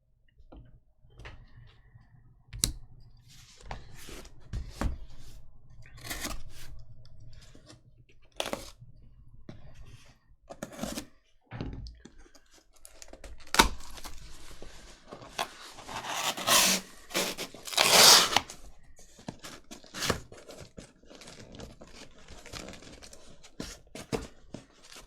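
Trading-card case packaging being torn open and handled: scattered rustles, knocks and crinkles, with two loud tearing noises about 16 and 18 seconds in.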